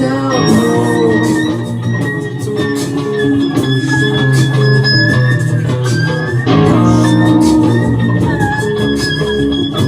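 Instrumental music: layered electric guitar and organ-like sustained notes over a steady bass line, with a melody line shifting pitch about six and a half seconds in.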